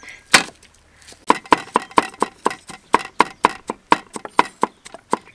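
Cleaver chopping garlic cloves on a thick wooden chopping block: one chop, then from about a second in a steady run of quick chops, about four a second.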